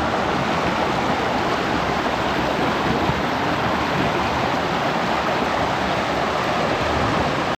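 Steady rushing of water spilling over rock-pool cascades, loud and close.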